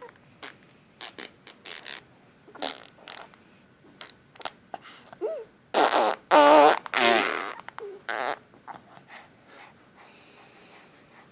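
Fart noises blown with the mouth: a run of short spluttering blows, then the loudest, longer buzzing raspberries with a wavering pitch about six to seven and a half seconds in.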